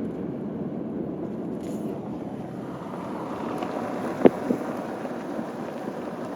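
Wind rumbling on the microphone, with one sharp knock about four seconds in and a fainter one right after it.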